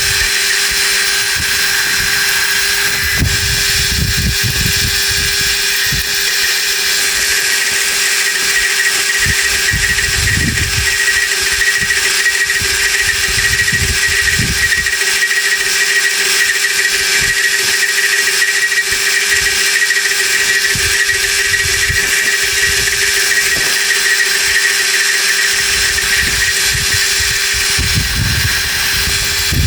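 A power tool's motor running steadily with a constant hum and a high whine while machining a steel part, with low rumbles coming and going several times.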